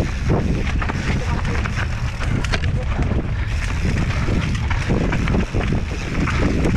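Wind rushing over the microphone, with rapid knocks and rattles of a mountain bike riding over a rough trail.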